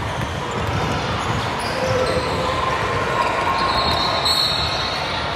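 A basketball bouncing on a gym floor during a youth basketball game, over a steady hubbub of players and spectators in a large hall.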